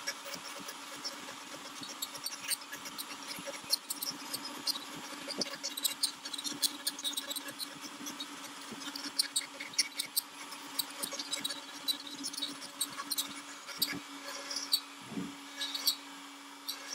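Onefinity CNC router carving a relief into a cedar board: a steady motor hum under rapid, irregular high ticks and chirps of the bit cutting the wood.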